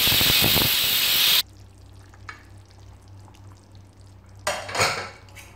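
Pressure cooker whistling: a loud rush of escaping steam that stops abruptly after about a second and a half. A second, shorter hiss comes near the end.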